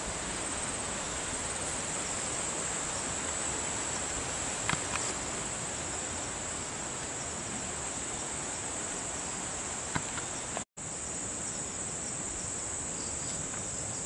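Steady, high-pitched drone of insects over a constant background hiss. The sound cuts out for a split second about three-quarters of the way through.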